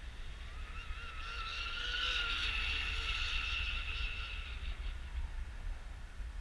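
Aeromarine Sprint Cat radio-controlled catamaran on a three-blade prop making a high-speed pass: a high-pitched whine that swells about a second in, holds, then fades away. Low wind rumble on the microphone runs underneath.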